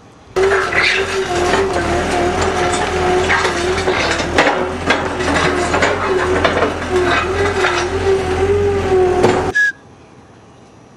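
A machine running with a steady, slightly wavering hum, mixed with continual crunching and clicking; it starts abruptly and cuts off suddenly near the end.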